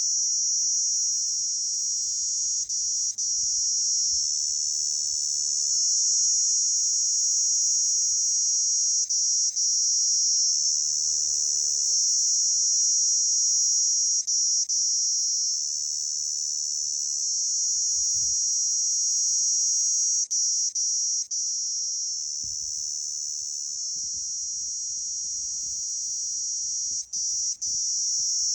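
Crickets trilling loudly in a continuous high-pitched drone, broken now and then by gaps of a fraction of a second.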